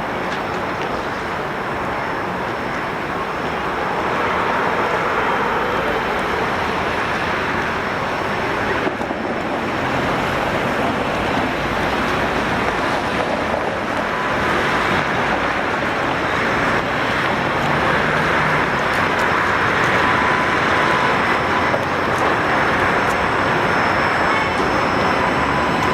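City street traffic with a tram approaching on its rails, its running noise slowly growing louder. A faint steady whine comes in near the end.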